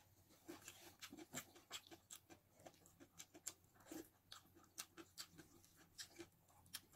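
Faint chewing and wet mouth clicks of a person eating rice and sardines by hand: many short, irregular clicks, a few each second.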